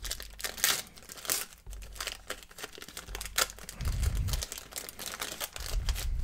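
Foil-lined trading card pack wrapper being torn open and crinkled by hand: irregular crackling and tearing, with two low thuds from handling, about four seconds in and near the end.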